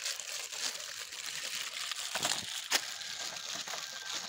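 Plastic instant-noodle packets crinkling and tearing as they are opened and the noodle cakes and masala sachets taken out, a dense crackle with a few sharper snaps.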